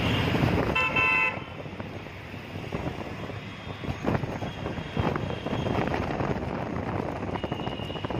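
Road traffic heard from a moving auto-rickshaw: steady engine and road noise, with a vehicle horn honking once, briefly, about a second in.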